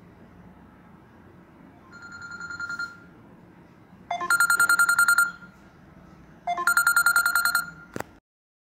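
Electronic ringer sounding three warbling rings of about a second each, the first one quieter, the next two loud. A sharp click comes just before the sound cuts off near the end.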